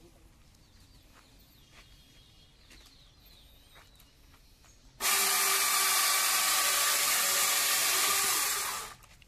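Two-man corded electric chainsaw starting up suddenly about five seconds in and cutting into a log, with a steady motor whine under the chain noise. It runs for about four seconds and stops shortly before the end.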